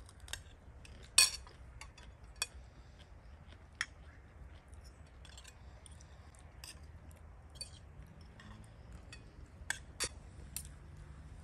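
Cutlery clinking against a dish: one sharp clink about a second in, then scattered lighter clinks.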